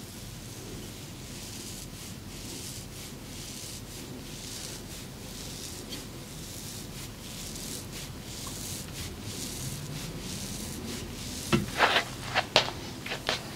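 Hands rubbing and stroking in a massage, a repeated hissing rub about two to three times a second. Near the end come a handful of sharper, louder sounds.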